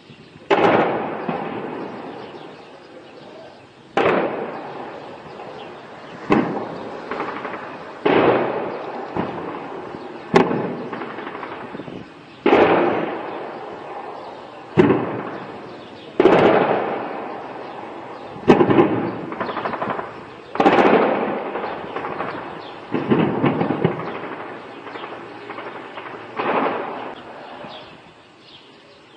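Shelling: about a dozen heavy blasts, roughly one every two seconds, each a sharp crack followed by a long rolling echo that dies away over a second or two.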